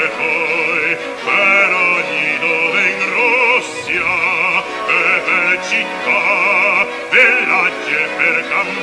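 Male operatic voice singing with orchestra in a duet, sustained phrases with wide vibrato broken by short breaths.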